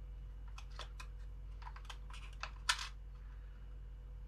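A quick run of about ten sharp, crisp clicks from a cut piece of stiff Lexan plastic being trimmed and handled, the loudest one about two-thirds of the way through.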